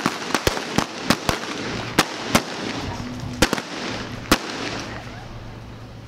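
Gunshots of a staged Old West gunfight: about ten sharp shots in quick, irregular succession, which stop after about four and a half seconds.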